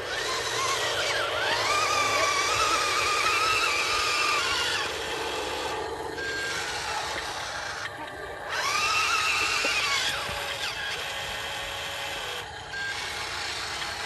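Remote-control dump truck's electric drive motor and gearbox whining as it drives. The whine rises in pitch as it speeds up, holds, then falls, twice: a long run early and a shorter one about two-thirds of the way through.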